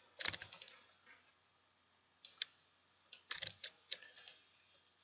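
Computer keyboard keystrokes in short runs: a cluster of taps near the start, a couple more about two seconds in, and another run in the second half.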